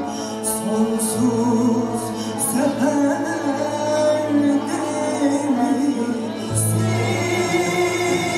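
Female voice singing a Turkish classical art song in makam Hicaz, with long ornamented held notes, accompanied by clarinet, kanun and oud.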